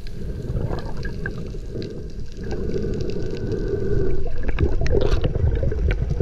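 Underwater sound picked up by a camera in a dive housing during a freedive: a muffled, steady rumble of water with some held tones. There is a cluster of sharp clicks a little past the middle.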